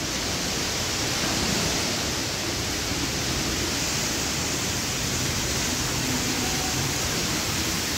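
Steady hiss of running water from a pool's water feature.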